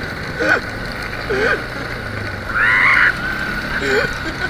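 ATV engine running with a steady low hum, with several short, high-pitched squeals over it, the loudest about two and a half seconds in.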